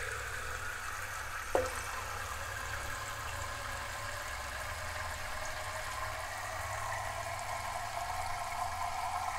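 Low-head shower tap spraying a spread of water streams into a plastic measuring jug, a steady hiss of water with a faint tone slowly rising in pitch as the jug fills. A single short click about one and a half seconds in.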